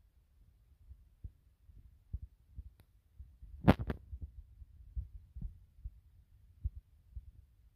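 Scattered soft low thumps, with one sharp loud click a little past halfway followed by two smaller ones: handling noise from a handheld camera or phone.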